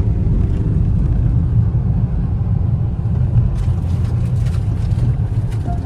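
Steady low rumble of road and wind noise inside a moving car, with a few faint clicks past the middle.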